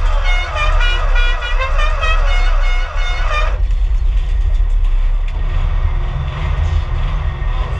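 Vehicle horn honking in a run of short blasts that stops abruptly after about three and a half seconds, over a steady low rumble.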